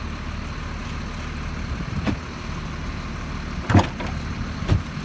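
A vehicle engine idling as a steady low hum, with three short knocks: about two seconds in, near four seconds, and just before the end.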